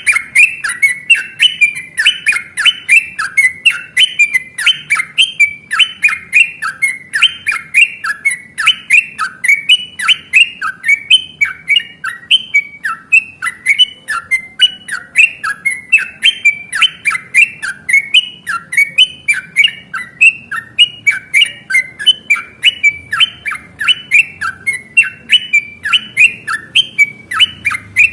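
Yellow-vented bulbul (trucukan) singing a long, unbroken run of quick, loud chattering notes, about three a second.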